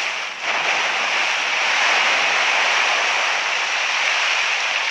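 Steady rushing hiss of a jet of water gushing from a pumped hose, dipping briefly just after the start.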